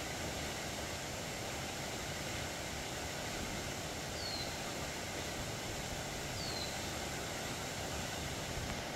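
Steady outdoor background noise with a bird's short, high, falling call, heard twice about two seconds apart.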